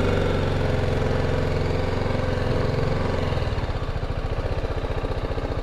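BMW G310GS's 313 cc single-cylinder engine running steadily, then about halfway through dropping to an even, pulsing idle.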